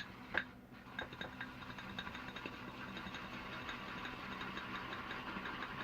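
Water running steadily from a tap onto the tips of a shaving brush, a fine crackly hiss. A couple of light clicks come just before it starts.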